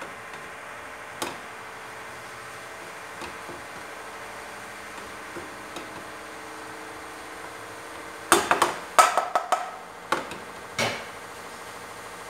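Wooden spatula stirring diced chicken in a frying pan, with a few light knocks against the pan over a steady background hum. About eight seconds in comes a burst of louder sharp knocks and clatter, with two more knocks a couple of seconds later.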